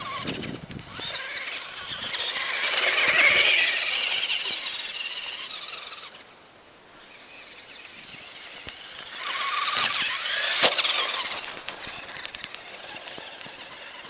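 Traxxas Rustler RC truck's brushed electric motor and drivetrain whining high as it is throttled across the snow, in two surges with a quieter lull between them. A sharp knock comes at the peak of the second surge.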